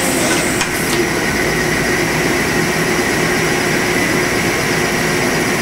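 Hardinge CHNC4 CNC chucker running idle at the end of its cycle: a steady machine hum with a few held tones. A brief hiss in the first second.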